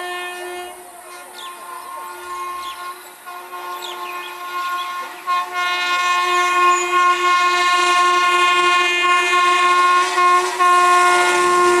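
Air horn of the Rajdhani Express's Indian Railways electric locomotive sounding one long, steady blast as the train approaches at speed, growing clearly louder from about five seconds in.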